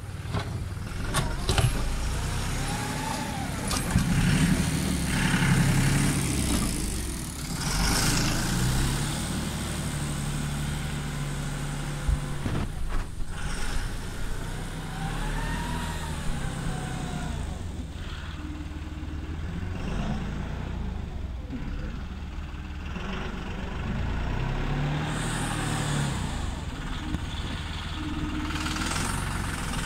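John Deere 5055E tractor's diesel engine running under load as it pushes snow with a front blade, revving up and down several times.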